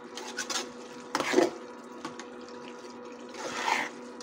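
Long metal slotted spoon stirring frying beef mince in an aluminium pot, with a few scraping strokes against the pot, the strongest about a second in and another near the end, over a steady hum.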